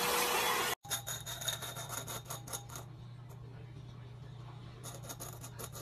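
A round-brush hair dryer blows steadily, then stops abruptly under a second in. It is followed by runs of rapid light clicks with a faint ringing, over a low steady hum.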